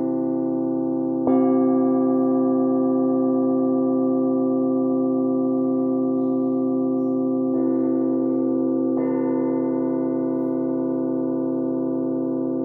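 Flat bells (bilo) being struck and left to ring, several steady tones overlapping in a long sustain. A fresh strike comes about a second in and two more after the middle, each renewing the ringing.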